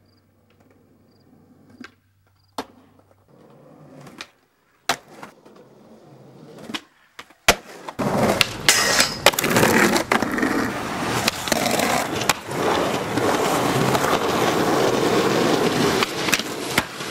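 Skateboard on concrete. At first a few sharp board clacks stand out against near quiet, then from about eight seconds in the wheels roll loudly and steadily over smooth concrete, with more clacks as the board is popped and landed.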